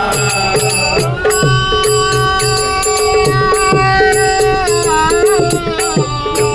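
Devotional bhajan music in raga Bhairavi: a sustained melodic line over a steady drone, with regular drum strokes and sharp high percussion strikes; the melody bends and slides about five seconds in.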